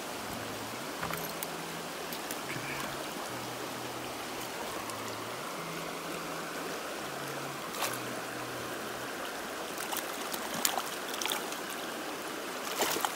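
Shallow, stony stream running steadily over rocks, with a few sharp short clicks about eight seconds in and several more near the end.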